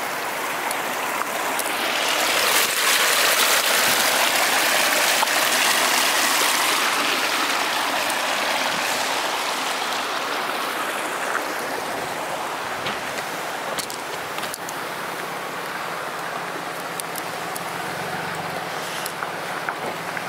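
Rushing water of a rocky mountain creek, a steady wash of noise that swells a couple of seconds in and then slowly eases off.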